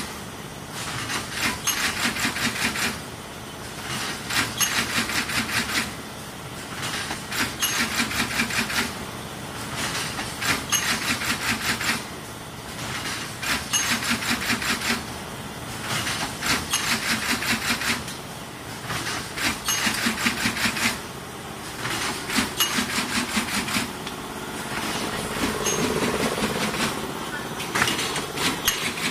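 Twin-head semi-automatic carton stitcher running. Its stitching heads clatter through a run of rapid strokes about two seconds long, one run every three seconds or so, as each corrugated box passes under them. A steady hum joins in for a few seconds near the end.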